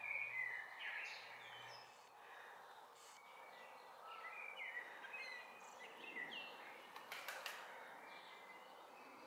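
Several songbirds chirping and singing in short, varied phrases over faint outdoor background noise, with a brief double click about seven seconds in.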